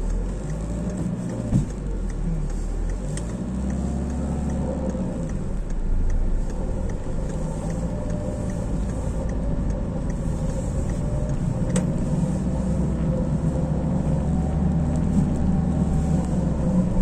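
A manual-transmission car being driven, heard from inside the cabin: a steady engine hum and road rumble whose pitch drifts gently up and down. There is one short click about twelve seconds in.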